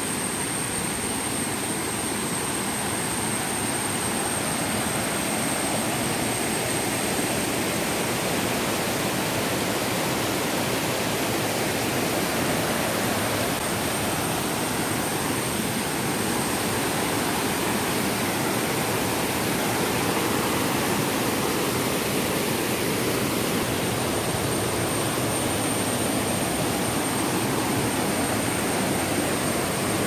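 Waterfall cascading over rock, a steady roar of rushing water that grows slightly louder over the first few seconds. A thin, steady high tone runs above it.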